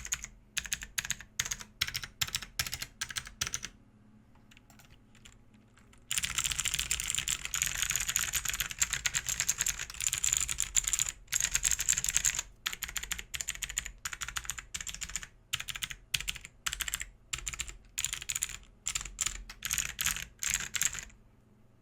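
BAJEAL K100 budget hot-swap TKL mechanical keyboard with clicky switches, typed on over a desk mat: crisp key clicks with a short pause about four seconds in. Then comes a fast, dense run of typing that thins to separate keystrokes toward the end.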